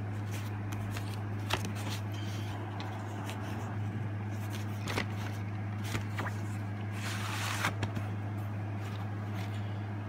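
Plastic VHS clamshell case being handled and opened, with scattered clicks and taps. About seven seconds in there is a brief scraping rustle as the cassette is slid out. A steady low hum runs underneath.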